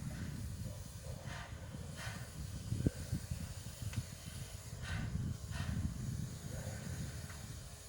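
Steam locomotive standing and hissing steam. Short puffs come in pairs every few seconds over a steady low rumble.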